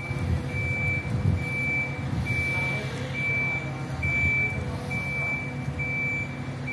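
Warning beeper of a shipyard boat travel lift sounding steadily while the lift works, about one high beep a second, over the continuous low hum of its running engine.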